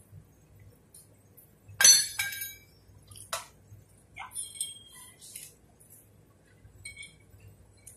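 Metal clinking. A sharp ringing clang about two seconds in, a second one right after and another about three and a half seconds in, then several lighter clinks.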